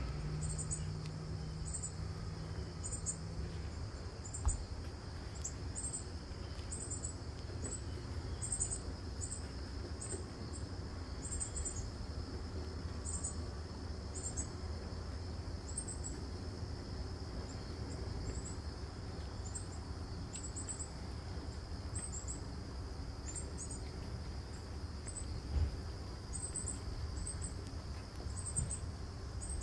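Insects chirping outdoors: a steady high-pitched drone with short, very high chirps repeating irregularly about once or twice a second, over a low rumble. Two brief knocks stand out, one a few seconds in and one near the end.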